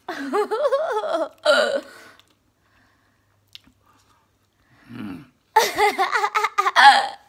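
Wordless, high-pitched vocal outbursts from a person reacting to the burn of very spicy noodles, in two bouts of a second or two each: one at the start and one near the end, with a pause between.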